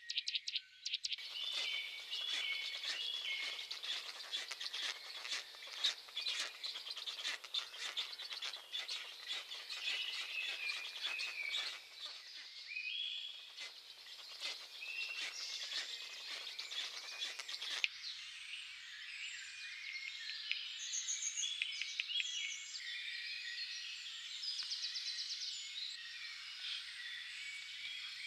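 Many small birds chirping and singing together in a dense chorus, with a background hiss that drops away abruptly about eighteen seconds in.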